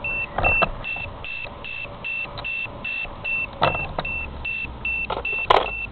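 Battery low-voltage alarm on the Syma X8G quadcopter beeping: short high beeps at one pitch, about two and a half a second, warning that the LiPo cell voltage has reached its adjustable cut-off, set around 3.5 V. A few sharp knocks sound over the beeping, the first about half a second in and two more near the end.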